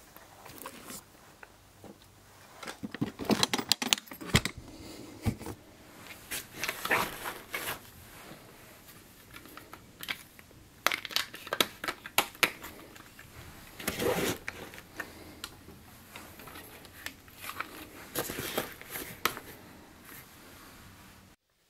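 Camera gear being packed into a padded camera backpack: capped lenses set into the divided compartments, making several clusters of clicks, knocks and fabric rustling.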